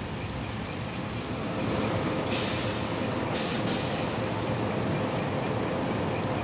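Coach buses idling at a stop, with two short hisses of compressed air from the buses' air system about two and three seconds in.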